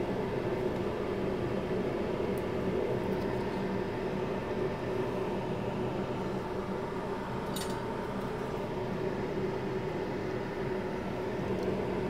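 Steady fan hum, like air conditioning or a bench fan, with a few steady tones over an even whir. A faint tick comes about seven and a half seconds in.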